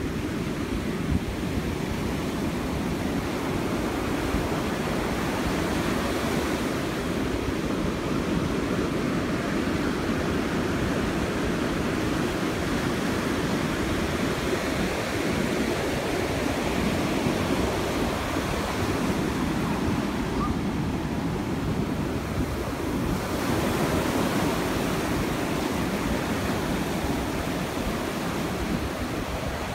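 Ocean surf breaking and washing up a sandy beach, its wash swelling and easing with the waves, with wind rumbling on the microphone.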